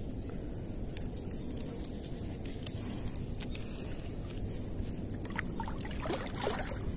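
Swamp water sloshing steadily around a wading angler, with a few faint clicks of fishing tackle being handled.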